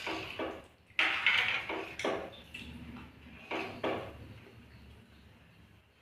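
Metal spoon clinking and scraping against a stainless steel pressure cooker pot as its contents are stirred, in a run of irregular strokes that thin out and fade in the last two seconds.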